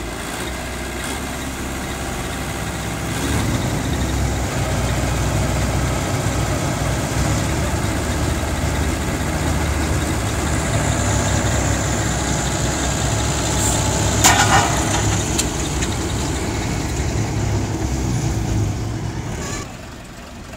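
Combine harvester diesel engine running, revved up about three seconds in, held steady, then dropping back shortly before the end. A brief sharp metallic clank about two thirds of the way through is the loudest moment.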